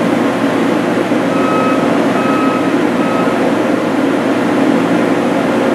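Steady industrial hum of a machine shop around a powered-up CNC lathe, with three short high beeps starting about a second in.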